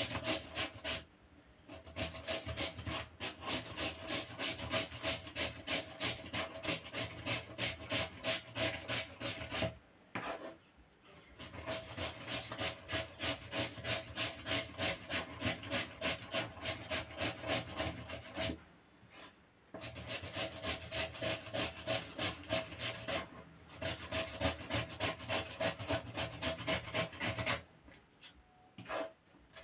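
Raw potato being grated on a small handheld grater: rapid, rhythmic rasping strokes, about three a second, with a few short pauses.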